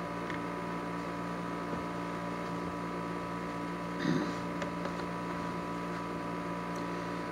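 Steady electrical hum made of several fixed tones: the background hum of the room and recording setup. A brief soft sound comes about four seconds in.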